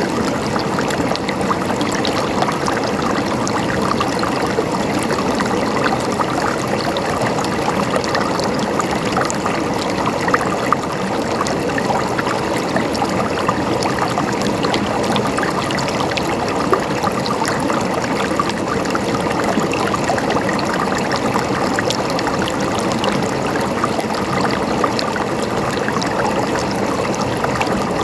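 Small stream of water flowing and gurgling steadily, with dense small splashes and a couple of slightly louder ones.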